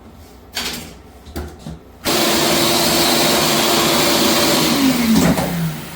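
A few light knocks, then a Shop-Vac wet/dry vacuum switches on with a sudden loud rush of air and a steady whine. It runs for about three seconds, then is switched off and winds down, its whine falling in pitch.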